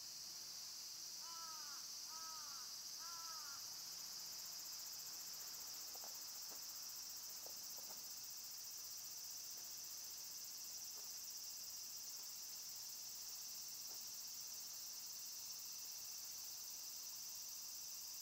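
Steady, high-pitched chorus of summer insects shrilling in the forest. About a second in, a bird gives three short arched calls, and a few faint ticks follow a few seconds later.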